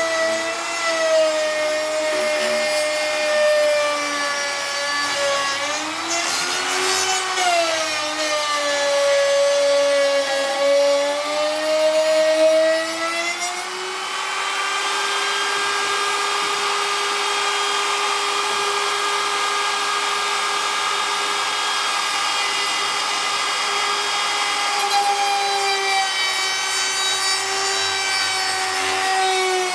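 An electric power tool's motor whining under load while it grinds or sands, its pitch sagging and recovering as the work is pressed against it and then holding steady, with a rasping rub throughout.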